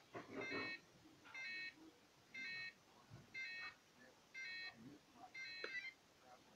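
Electronic beeper sounding a short multi-tone beep six times, about once a second, each beep lasting under half a second.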